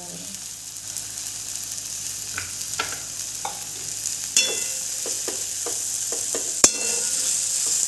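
Yippee noodles sizzling in a kadhai while a metal spoon stirs them, with light clinks and scrapes against the pan and one sharper clank with a short ring near the end.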